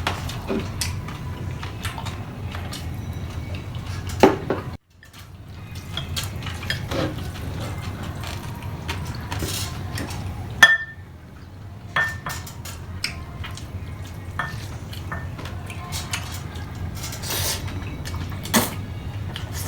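Cutlery clinking and scraping against dishes while eating, in scattered short clicks, one of them ringing briefly about ten seconds in, over a steady low hum. The sound drops out briefly about five seconds in.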